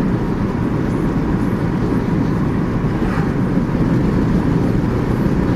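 Steady road and engine noise heard inside a moving car's cabin, a low, even rumble with no change.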